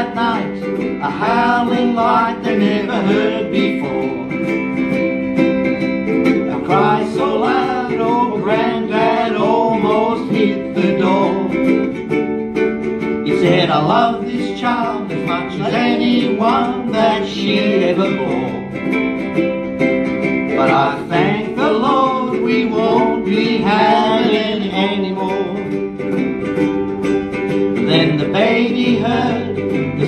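Two ukuleles played together as accompaniment to singing voices.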